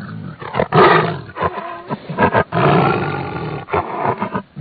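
A roaring animal sound effect: a run of several roars and growls broken by short pauses.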